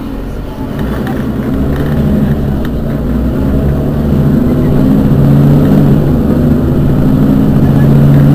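Rear-mounted engine of a Mercedes-Benz Citaro city bus running while the bus stands still, a low hum that grows steadily louder.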